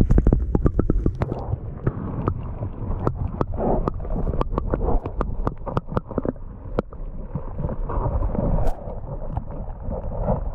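Muffled underwater sound heard through a submerged camera in a river. A loud plunge as it goes under, then gurgling water and bubbles over a low rumble, with many irregular sharp clicks and knocks, thickest in the first several seconds.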